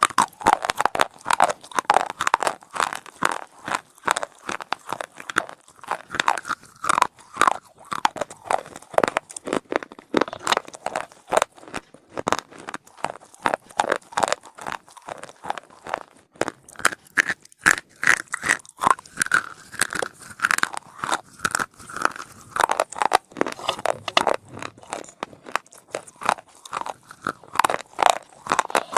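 A person biting and chewing something dry and hard close to the microphone: dense, crisp crunches, several a second, with no pause.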